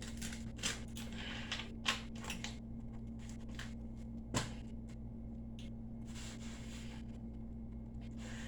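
Quiet pause filled with scattered faint clicks and small mouth and handling noises of someone finishing a mouthful, over a steady low hum; one slightly louder click about four and a half seconds in.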